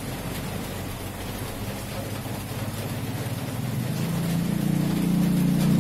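Corded electric hair clippers buzzing steadily as they cut hair up the side of a head, with a hissy rasp. A low hum swells louder over the last couple of seconds.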